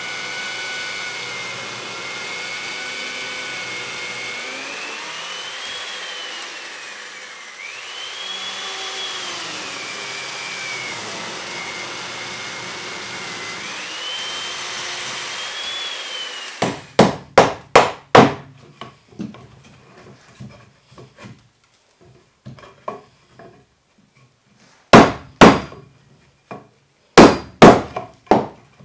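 An electric power tool's motor running as it cuts into a timber beam, its whine dipping and rising with the load. It stops about 16 seconds in, followed by mallet blows on a chisel: a quick run of about six strikes, then more strikes near the end.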